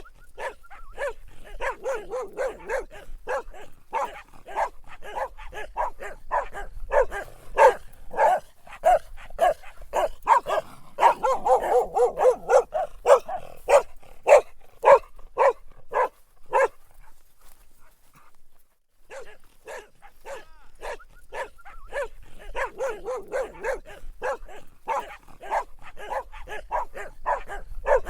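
Dog barking in a rapid, continuous string of sharp barks, several a second, broken by a pause of about two seconds a little past the middle.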